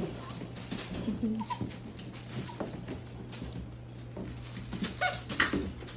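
Young doodle puppies giving small squeaks and whines, scattered among scuffling and little clicks as they move about, over a steady low hum.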